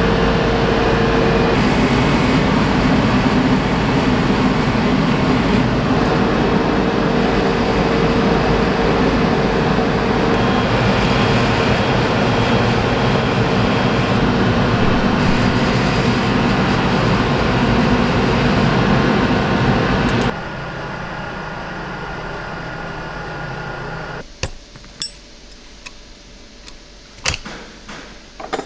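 Grinding wheel running with a stainless-steel scissor blade held against it for sharpening: a loud, steady rushing noise over a low hum. About 20 seconds in it drops to a quieter hum, and in the last few seconds come sharp metal clicks and clinks as scissor parts are handled at a steel jig.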